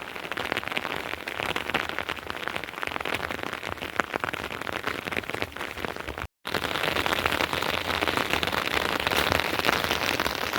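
Steady rain falling, a dense patter of drops on surfaces, cut off for a split second about six seconds in.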